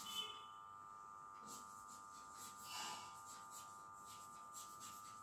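Chalk writing on a blackboard: faint, scattered scratches and taps of the strokes, over a steady faint hum.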